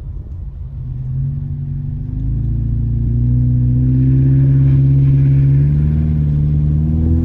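Car engine accelerating, heard from inside the cabin: its drone climbs in pitch and gets louder over the first few seconds, then holds steady.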